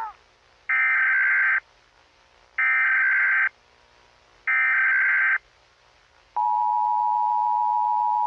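Emergency Alert System broadcast tones: three screechy bursts of the digital SAME header, each just under a second long and about two seconds apart, then the steady two-tone EAS attention signal starting about six seconds in and cutting off abruptly.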